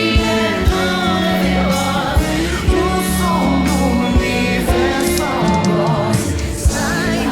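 A song sung by several voices over an instrumental accompaniment with a bass line and a steady percussive beat.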